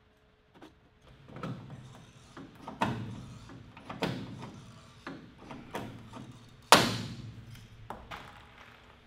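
Hand rivet puller setting blind rivets in the aluminium wing root rib: a series of about six sharp snaps roughly a second apart as each rivet's mandrel breaks off, the loudest about two-thirds of the way through.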